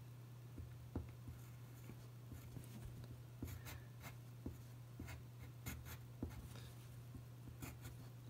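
Pen on paper, faint scratching in short, irregular strokes as a small cartoon piglet is drawn, over a steady low hum.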